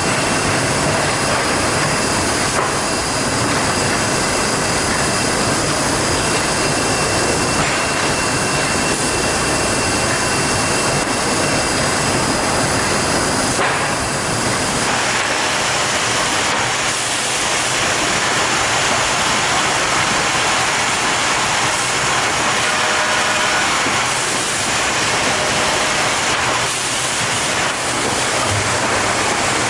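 PRIESS & HORSTMANN BAT DTW-CNC feed-through drilling and dowel-insertion machine running, a steady mechanical whir with a loud hiss; the sound shifts about halfway through as the machine moves to another stage.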